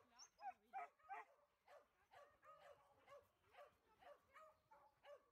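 Dog barking in a quick, even run of short yips, about three a second, loudest around the first second, while the dogs play together.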